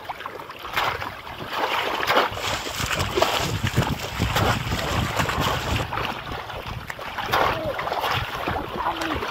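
Shallow water splashing and sloshing without a break as people wade and work a polo basket trap. The sound gets louder about a second in.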